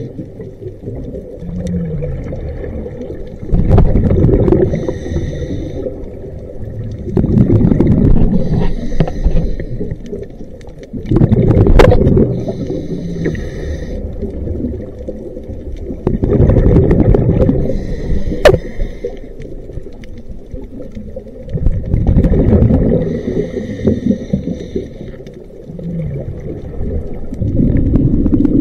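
Scuba diver breathing through a regulator underwater. Each breath is a short hiss on the inhale, then a loud burst of bubbling on the exhale, repeating about every five seconds.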